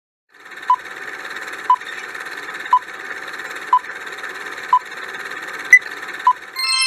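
Quiz countdown timer sound effect: a steady hiss with a short beep about once a second and one sharper, higher click near the end, then a bright ringing chime of several tones sounds just before the end as the time runs out.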